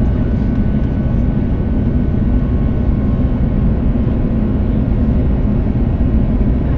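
Airbus A350 cabin noise on approach: the Rolls-Royce Trent XWB turbofans and rushing air heard from inside the cabin as a deep, even rumble with a faint steady whine above it.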